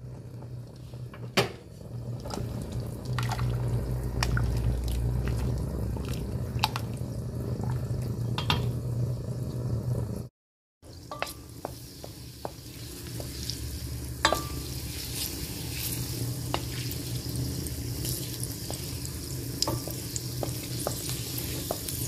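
Butter and olive oil with a garlic clove heating in a stainless steel pot: a low steady hum with scattered clicks, then, after a brief break, a steady sizzle as the melted butter begins to bubble, with a wooden spoon clicking against the pot.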